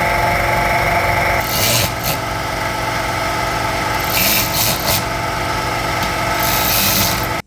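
A power tool running steadily while driving in the beadlock ring bolts, with harsher spells about one and a half, four and six and a half seconds in. It starts and stops abruptly.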